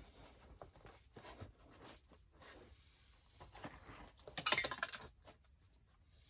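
Small metal parts clinking and rattling in a plastic tub as a hand rummages through them, a quick burst of clinks about four and a half seconds in, amid scattered light taps and knocks of handling.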